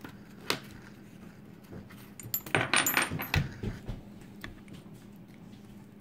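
Metal parts of a small pin-tumbler lock cylinder clinking as it is taken apart with a shim and a plug follower: a single click about half a second in, then a burst of light metallic clinks and rattles between about two and three and a half seconds in.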